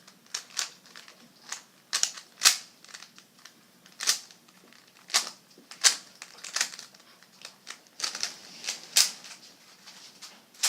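Rubik's Cube being solved by hand: its plastic layers turned with sharp, unevenly spaced clicks, about two a second.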